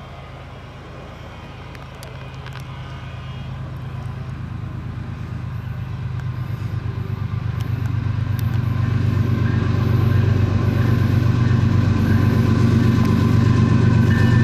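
Diesel locomotive, a Union Pacific ES44AC-H leading an autorack freight train, approaching with a steady low engine drone that grows louder throughout.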